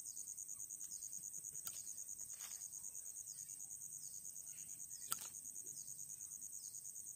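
Steady, high-pitched pulsing trill of insects, with two sharp clicks as a curved knife cuts into a thin wooden stick, the louder one about five seconds in.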